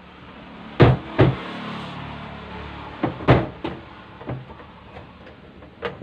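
Plastic rear top cover of a twin-tub washing machine being pushed and slid to unlatch it: several sharp knocks and bumps, with a scraping rub between the first few.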